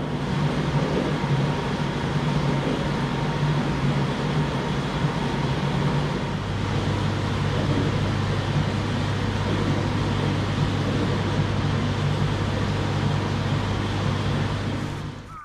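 A motor running steadily under a rushing hiss. Its hum drops to a lower pitch about six seconds in, and the sound stops suddenly near the end.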